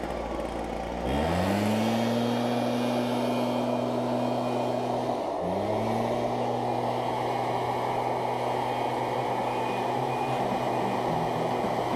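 An engine running at low idle that speeds back up about a second in, then drops briefly near five seconds in and climbs back to a steady speed.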